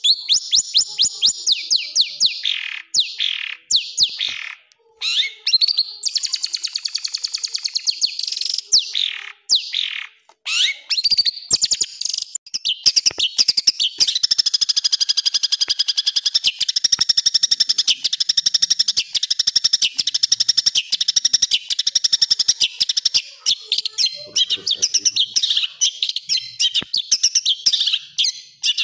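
Long-tailed shrike (cendet) singing harsh, rapid-fire phrases. The first third mixes quick falling whistles with short gaps; after that comes an almost unbroken fast chatter of repeated high notes.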